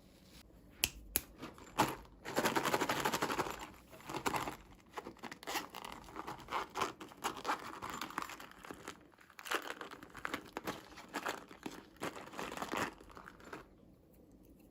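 Plastic packaging being crinkled and torn open by hand. A few sharp clicks come first, then a longer stretch of loud crinkling, then stop-start rustling that ends shortly before the close.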